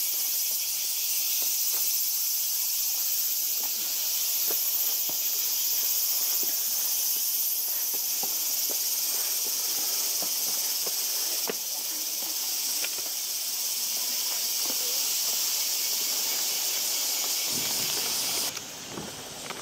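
A steady, high shrill chorus of insects, with faint footsteps on stone steps beneath it. The chorus breaks off near the end.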